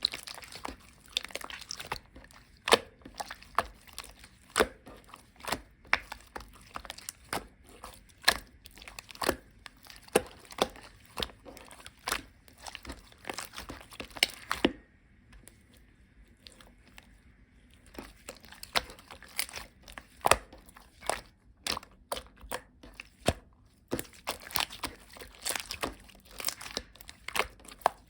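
Soft slime that keeps melting, squished and poked by hand, giving irregular sharp clicks and pops, with a pause of about three seconds around the middle.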